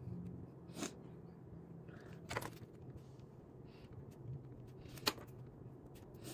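Pens being handled on a desk: three short sharp clicks or taps, about one, two and a half and five seconds in, the last the loudest, over a low steady room hum.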